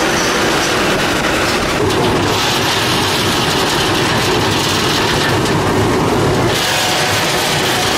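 Continuous almond roaster running: a steady, loud mechanical rattle and rumble from its conveyor and fans. A brighter hiss joins for a few seconds in the middle.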